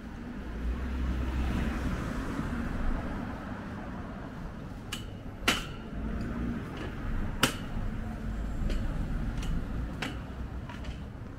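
City street sound: a steady low traffic rumble, heaviest in the first two seconds, with a string of sharp clicks, two of them loud about five and a half and seven and a half seconds in.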